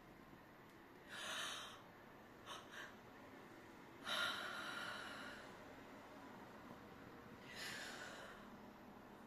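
A person breathing slowly and audibly close to the microphone. There is an airy breath about a second in, two short quick breaths around two and a half seconds, a longer, louder breath out about four seconds in that trails off slowly, and another breath near the end.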